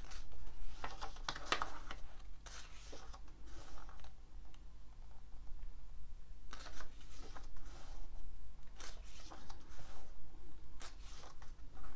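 Paper pages of a guidebook being handled and turned: a series of irregular short rustles.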